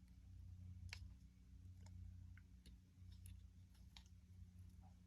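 Near silence with a low steady hum and a few faint, scattered light clicks as small die-cast toy car parts, the new wheels and axle, are handled on the chassis.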